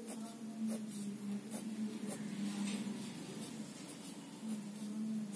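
Pen drawing on paper: a run of short strokes and light taps at irregular intervals as lines are drawn, over a steady low hum.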